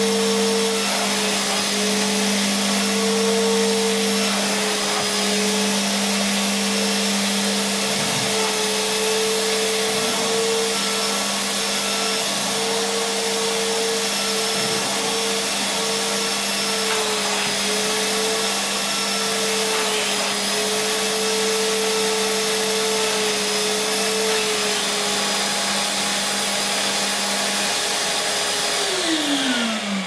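Numatic George wet-and-dry vacuum cleaner running steadily while its spray-extraction tool is drawn over wet carpet, the motor note wavering slightly. A lower steady hum drops out a couple of seconds before the end, then the motor is switched off and its pitch falls as it winds down.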